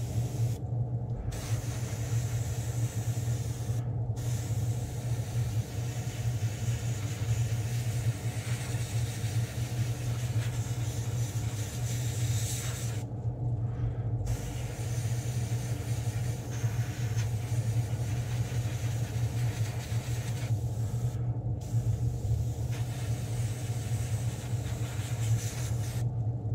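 Airbrush spraying light passes of paint through a lure stencil, a steady hiss of air that stops briefly about four times as the trigger is let off. A steady low motor hum runs underneath.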